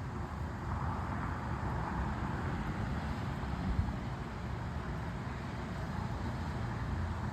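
Steady rumble of distant road traffic, swelling for a couple of seconds about a second in as a vehicle passes.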